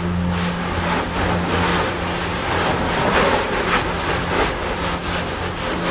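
Lava fountains on an erupting Kilauea fissure roaring steadily under a low hum, with irregular short surges as spatter bursts up.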